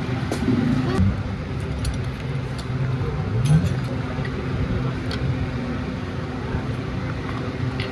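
An engine running steadily, rising briefly in pitch about three and a half seconds in, with light metallic clicks and clinks over it.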